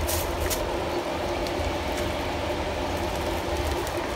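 A steady machine hum, with a couple of light clicks just after the start.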